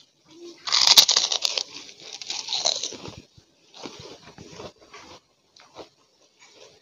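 A person biting into and chewing white kerupuk crackers together with raw cucumber. There are two loud spells of crunching in the first three seconds, then quieter, shorter chewing crunches.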